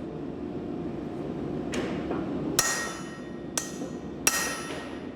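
Camp axes used as forging hammers striking a hot steel billet: four ringing metallic blows about a second apart, the first one softer, over a steady low rumble.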